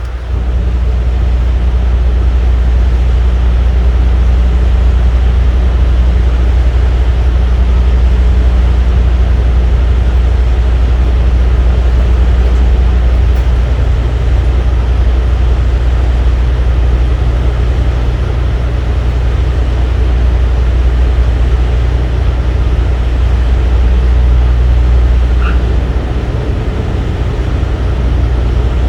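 Loud, steady, low mechanical drone with an even hum, like an engine or motor running at a constant speed.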